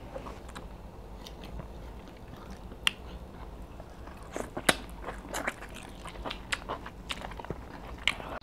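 Close-miked chewing and biting of two people eating soft swallow and meat in soup with their hands: wet mouth smacks and sharp clicks, scattered at first and coming faster from about four seconds in.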